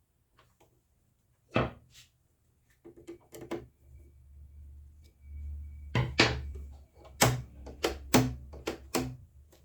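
Hard plastic knocks and clicks from a sewing machine and its parts being handled during assembly: a couple of single knocks, then a quick run of several clicks and clunks near the end, over a faint low hum.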